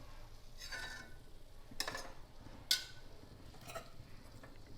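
Several light clinks of a metal utensil against a pan as fried balushahi are lifted into warm sugar syrup, spaced roughly a second apart.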